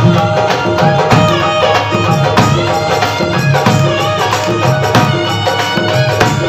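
Hindi devotional bhajan music: a melody over a steady hand-drum rhythm.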